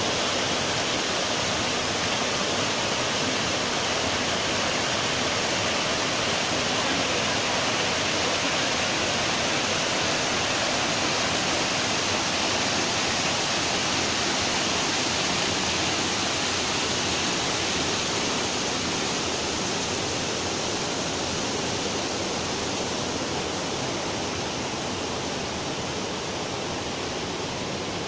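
Waterfall cascading over rock boulders: a steady rush of falling water, easing slightly near the end.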